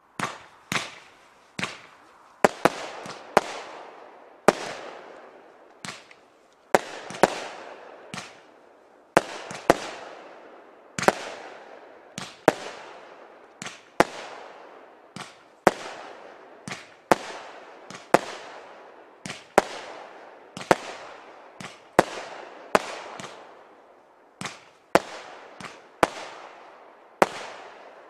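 A 'Real Steel' multi-shot firework cake firing shot after shot, about one a second and sometimes two in quick succession. Each is a sharp bang followed by a fading crackle.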